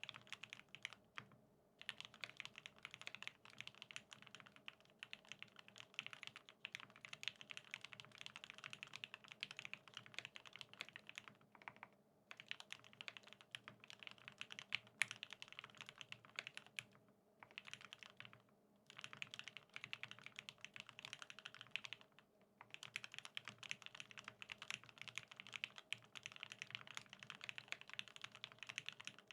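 BAEBAE TKL custom mechanical keyboard with lubed OA switches on an aluminium plate, typed on continuously at a fast pace, with a few short pauses between runs of keystrokes.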